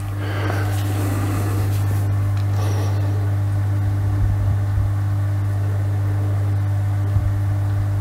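Aquael Ultramax 2000 canister filter running: its pump motor gives a steady electrical hum, with water churning in the bucket from the outflow. A small tick sounds about seven seconds in.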